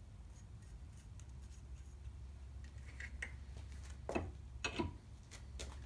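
Light metal clicks and clinks of a tap and T-handle tap wrench being fitted together and set into a drilled hole in a metal block held in a vise, with two sharper clinks a little after four seconds in.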